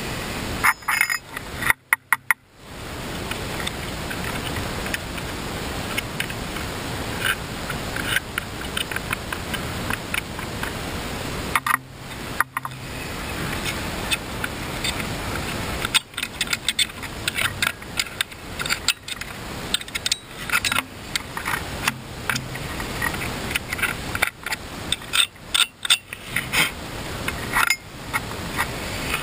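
Scattered clicks, clinks and small scrapes of tools and plastic parts as a small chainsaw is worked on by hand, over a steady background rush. The saw's engine is not running.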